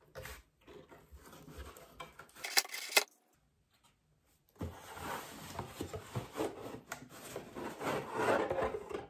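A gift box being opened and its packaging handled: rubbing and scraping, with two sharp clicks a little before the middle. After a short pause comes a longer stretch of rustling and scraping.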